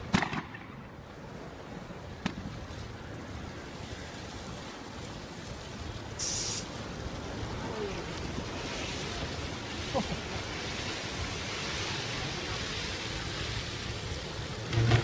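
Steady rushing noise from a burning pole-mounted transformer fire and wind on the microphone. A sharp crack comes right at the start, a fainter click about two seconds in, and the hiss grows louder in the second half.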